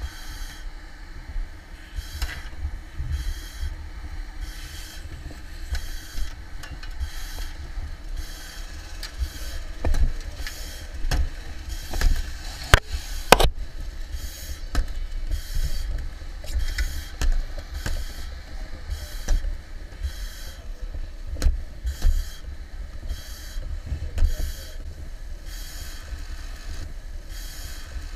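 A firefighter sounding a roof, slamming a long-handled tool against the roof deck in repeated knocks, two sharp blows standing out about halfway through, over a steady low rumble. Sounding the roof tests whether it is strong enough to walk on over the attic fire.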